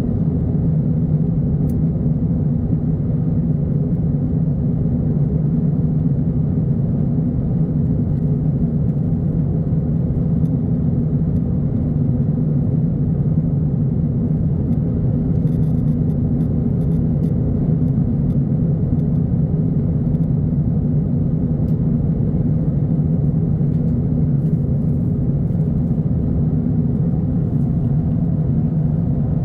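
Steady low rumble of an airliner cabin in flight: jet engine and airflow noise heard from inside the cabin, with a few faint small ticks.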